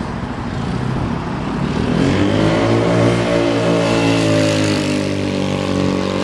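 GY6-swapped Honda Ruckus scooter's single-cylinder four-stroke engine running as the scooter rides up and passes close by. Its pitch rises about two seconds in, then slowly falls as it rides away.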